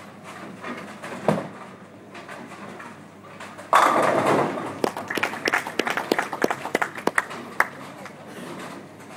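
Ten-pin bowling ball set down on the lane with a thud about a second in, then a sudden crash as it hits the pins, followed by several seconds of pins clattering and knocking together.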